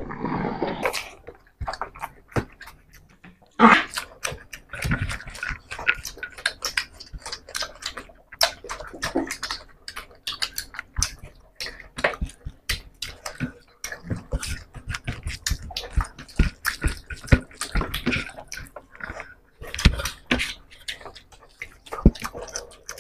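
Two people eating rice and fish curry with their hands: wet chewing, lip smacks and mouth clicks coming thick and irregular, with fingers squishing rice on steel plates.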